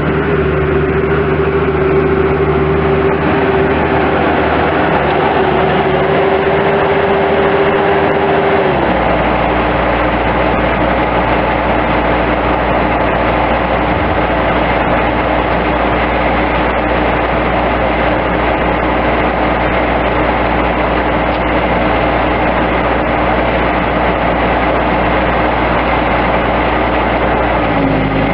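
2005 Bobcat S185 skid steer loader's diesel engine running steadily with a pitched whine. About nine seconds in the pitch steps down and the low rumble grows heavier, as the machine's engine speed or load changes; it dips briefly again near the end.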